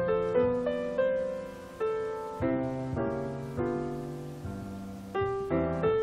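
Background piano music, notes and chords struck and left to fade.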